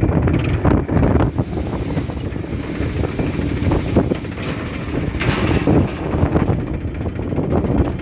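Tractor diesel engine running steadily while its hydraulics raise the tipping trolley's bed on a ram, with wind buffeting the microphone.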